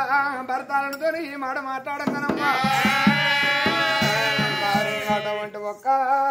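Oggu Katha folk singing: a lead male voice sings a wavering line, then about two seconds in a chorus of accompanying voices joins with drum beats for about three seconds. The lead voice carries on alone near the end.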